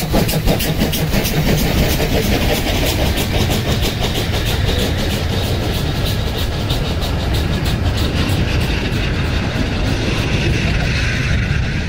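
Metre-gauge steam train passing close by. The locomotive's rapid exhaust chuffs, about seven a second, fade over the first few seconds and give way to the steady rumble and wheel noise of vintage passenger carriages rolling past.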